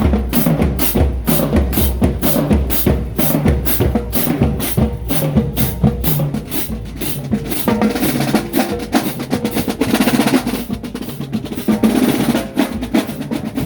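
Marching band drumline of snare and bass drums playing a driving cadence. The strokes are evenly spaced, and the rhythm grows denser and fuller after about eight seconds.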